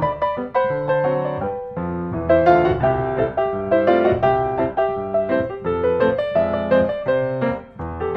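Background piano music: a melody over chords at a moderate pace.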